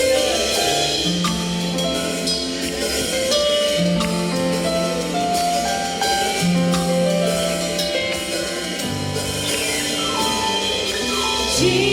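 Gospel worship music in an instrumental passage between sung lines: held notes over a moving bass line, with light percussion.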